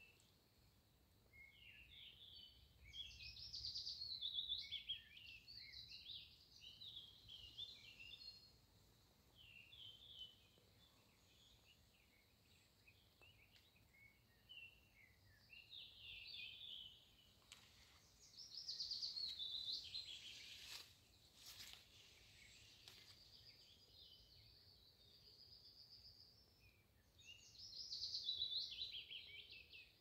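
A small songbird singing in repeated phrases of quick, high chirps and trills, several bursts of a few seconds each with short pauses between, over faint forest ambience. A few faint clicks come midway.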